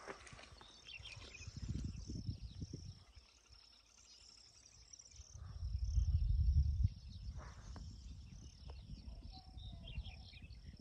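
Insects chirping in a steady high-pitched trill, with a low rumble of wind on the microphone that swells loudest a little past the middle.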